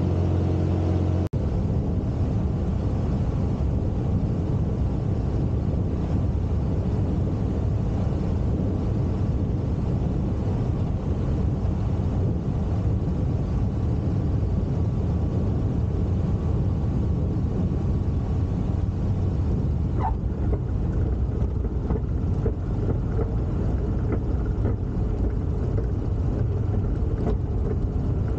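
Jabiru 3300 flat-six engine of a Zenith CH 601 XL-B running at reduced power, with steady wind and airframe noise heard inside the cockpit, through the final approach and landing roll. A brief squeak about two-thirds of the way through, the tyres touching down.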